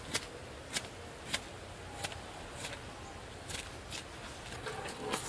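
A knife cutting into the skin and flesh of a scalded pig carcass, heard as a string of sharp clicks, roughly one every half second.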